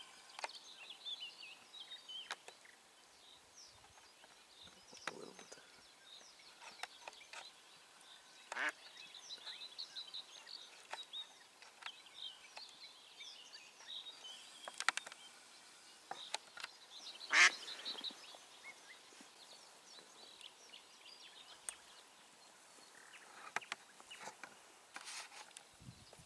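A duck quacking a few times, the loudest calls about 9 and 17 seconds in, over small songbirds twittering.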